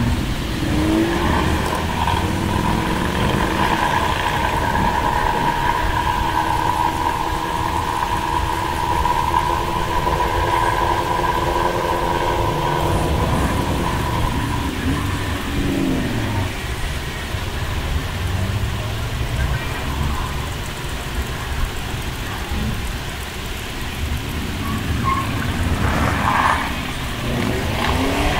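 Car engines running with a steady low rumble, an engine's pitch sweeping up and back at the start, about halfway through and again near the end, as in revving. A steady whine is heard over the first half.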